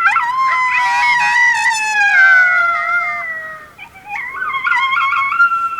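Coyotes howling: several long, slowly falling howls overlap, with a flurry of yips about a second in, then a second round of wavering howls from about four seconds.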